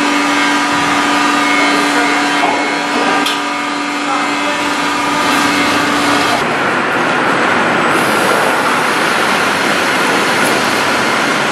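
Electric rail transfer cart running with a steady motor hum over general factory noise. About six seconds in the hum stops abruptly and an even, louder rushing machinery noise takes over.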